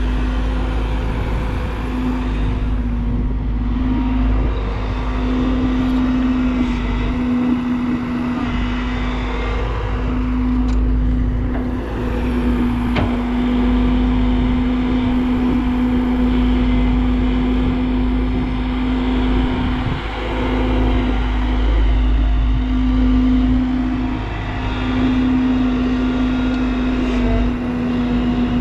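Hyundai crawler excavator's diesel engine running at a steady working speed with a constant hum, under hydraulic load as it digs soil and swings to dump it into a tipper trolley; the level dips briefly a few times.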